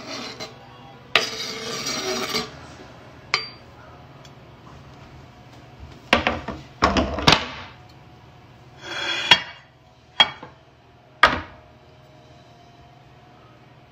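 Kitchen knife scraping over a wooden cutting board, then short clatters and several sharp knocks of dishes and utensils being handled, the last about eleven seconds in.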